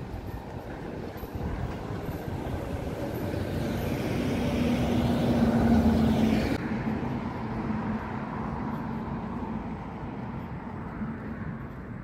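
Street traffic: a motor vehicle engine passing close by, swelling to a peak about six seconds in and then fading.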